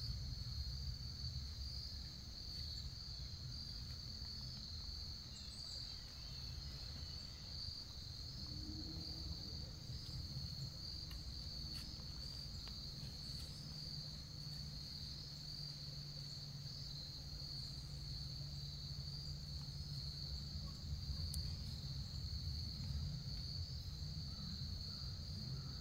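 A steady, high-pitched chorus of crickets trilling without a break, over a faint low rumble.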